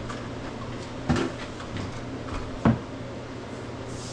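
Two sharp knocks about a second and a half apart, with a few fainter clicks, over a steady low hum.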